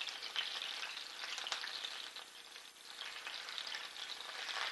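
Chicken pieces sizzling in hot olive oil in a frying pan as they are turned over with tongs, with a few sharp pops through the steady sizzle.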